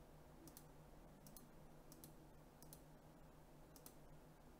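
Near silence with faint, sharp clicks in five pairs spread over a few seconds, each pair about a tenth of a second apart, over a low steady hum.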